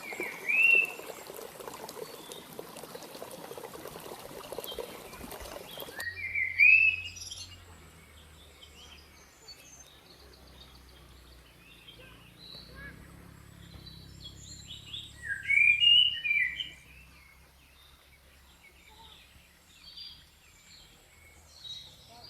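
Songbirds singing in short rising phrases over the rush of a flowing stream. The water sound cuts off suddenly about six seconds in. After that the birds go on alone, with a loud burst of song near the start of this stretch and another about ten seconds later, and softer scattered calls between.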